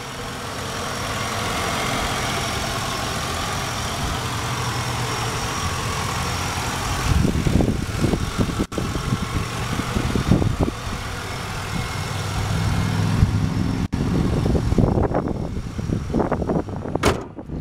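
Ford 4.6-liter modular V8 idling steadily under an open hood, with a thin steady high whine over the engine note. From about seven seconds in, gusts of wind buffet the microphone.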